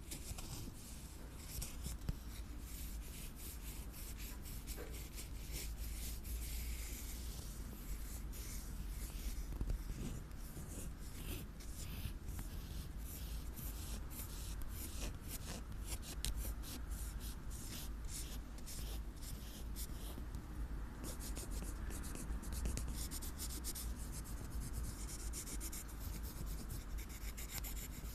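Close-up ASMR scratching on an item's surface: quick, irregular strokes that run on with no pause, like a pen writing or something being rubbed.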